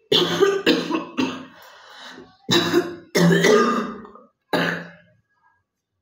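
A woman coughing into her fist in a fit: a quick run of coughs, then two more, then a last one about four and a half seconds in. It is a real cough with phlegm.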